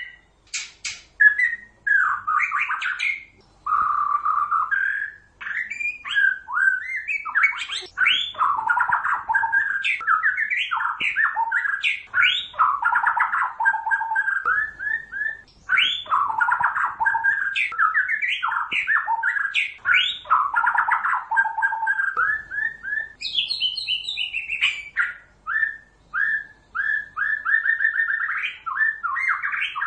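White-rumped shama (murai batu, Pasaman type) singing a long, continuous song of rapid whistled phrases: fast up-and-down sweeps and trills with only short pauses. Some two-thirds of the way through it switches briefly to a run of higher notes.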